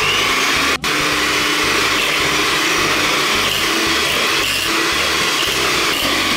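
Electric hand mixer running steadily at speed, its beaters whipping egg whites in a glass bowl; the sound briefly drops out under a second in.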